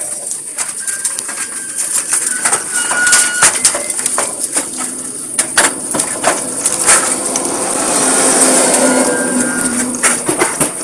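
Gaifeng GF-3.5 paver laying machine crawling over a crushed-stone and sand base: gravel crunching and clicking under its tracks and guide roller, with a louder, denser stretch of crunching near the end.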